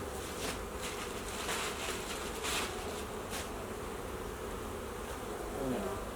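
Honeybees buzzing in a steady hum from an open hive colony, with a few brief scratchy noises in the first few seconds.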